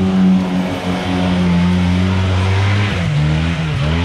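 Off-road vehicle engine running hard under load, holding a steady note and then dropping and wavering in pitch about three seconds in as the revs change.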